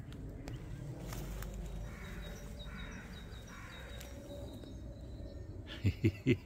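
Quiet outdoor background with a few faint, distant bird calls, much like a crow's caws, about two to four seconds in. Just before the end come three short, loud pitched sounds.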